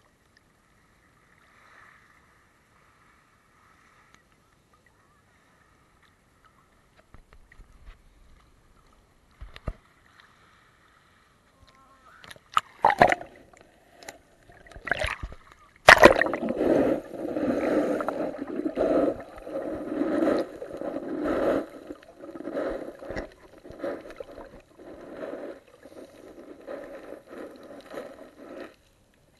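Sea water heard through a waterproof action camera's housing. It is quiet at first. Then a few sharp knocks and splashes come as the camera goes under. After that comes a muffled, rhythmic sloshing and thumping underwater, rising and falling about once a second with the swimmer's strokes.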